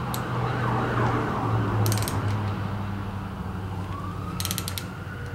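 Socket ratchet clicking in short runs as a rocker-arm nut on a Chevy 350 small-block is snugged down to take up the pushrod slack. Behind it, steady road-traffic noise and a siren wailing up and down.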